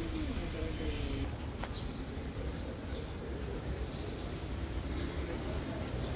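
Honda City sedan rolling slowly over a speed breaker, its engine a low steady rumble with a tone falling in pitch in the first second. A bird chirps about once a second over the street rumble.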